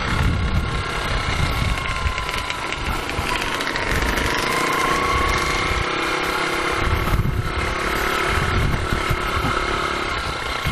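Rusi KR 125 dirt bike's engine running under throttle on a dirt track, its pitch rising and falling with the throttle, with wind rumbling on the microphone. The engine note drops briefly about seven seconds in as the throttle eases off.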